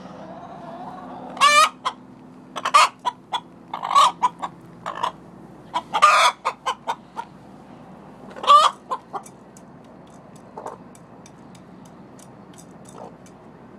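Chickens clucking and squawking in a string of short calls for the first eight or nine seconds, the loudest near the start, the middle and just past the middle. After that only faint high ticks remain.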